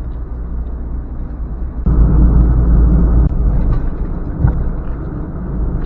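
Car on the move: a steady low rumble of engine and tyres on the road, growing louder about two seconds in for a second or so, then easing back.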